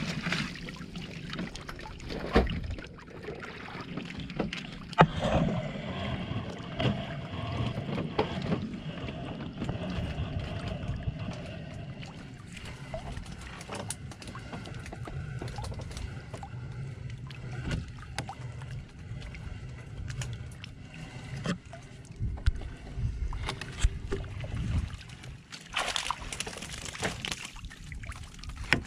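Seawater splashing and sloshing as a plastic-screen bubo fish trap is hauled up alongside an outrigger boat, with scattered knocks against the hull and rigging. Near the end comes a loud rush of water streaming off the lifted trap.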